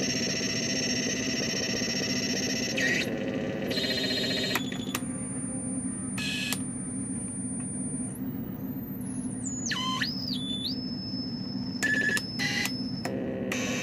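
Homemade synthesizer playing a steady low buzzing drone under high whistling tones that jump abruptly in and out and between pitches. About ten seconds in a tone swoops down and back up, and near the end the tones cut in and out quickly as its toggle switches are worked.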